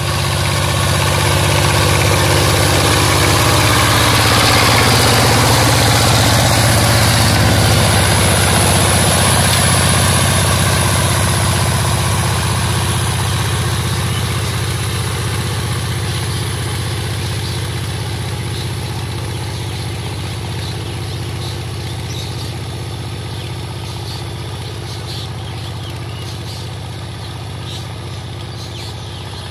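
Single-cylinder diesel engine of a two-wheel power tiller running steadily under load as its cage wheels churn through flooded paddy mud. It grows louder over the first few seconds, then fades slowly as the tiller moves away.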